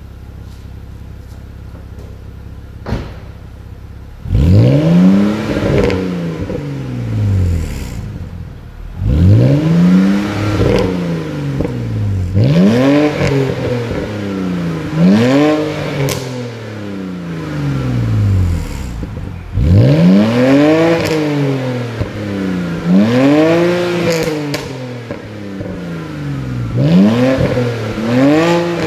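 BMW Z4 E89 3.0i's naturally aspirated 3.0-litre straight-six, on its stock exhaust with a modified centre pre-silencer, idling steadily, with a single knock about three seconds in. From about four seconds in it is revved about eight times while standing, each rev rising sharply and falling back toward idle.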